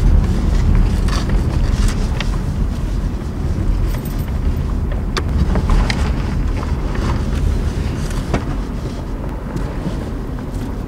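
Low, steady rumble of a car's engine and tyres heard from inside the cabin as it is driven slowly, with a few scattered faint clicks.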